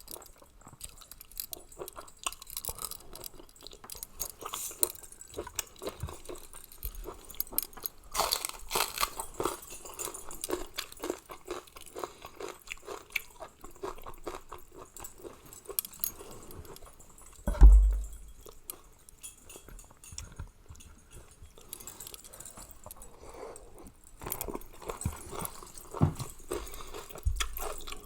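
Close-up eating sounds of a person chewing and crunching a Thai spicy seafood salad, with many small crisp crunches. One louder, duller thump comes a little past halfway.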